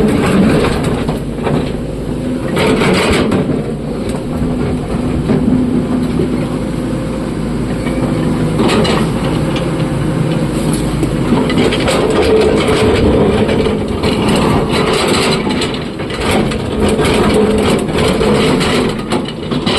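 Heavy diesel engine of an excavator running steadily, with irregular knocks and scraping of rock throughout, busier in the second half.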